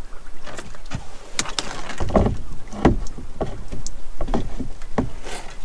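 Lobster pot being handled aboard a small open boat: a series of knocks and rattles as the pot is set against the boat's side and gunwale, the heaviest thump about two seconds in.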